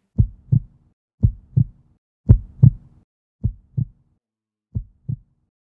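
Heartbeat sound effect: five slow lub-dub double thumps about a second apart, the third the loudest and the last two fainter.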